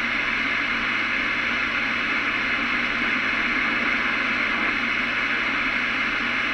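Steady static hiss from a CB radio receiver on an open channel between transmissions, even and unbroken with no voice in it.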